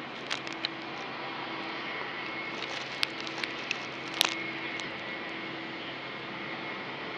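Steady distant rush of an Embraer E190-E2's Pratt & Whitney PW1900G geared turbofans, with a thin high whine, as the jet rolls along the runway. A few sharp clicks cut through, the loudest about three and four seconds in.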